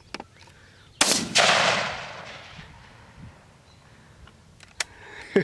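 A single rifle shot about a second in, a loud crack followed at once by a second report and a long echo fading out over about a second and a half.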